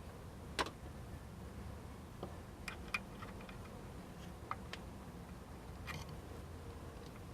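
A handful of short, sharp clicks and taps spaced irregularly over a low steady hum: hand tools working on metal while the crankshaft position sensor is being undone.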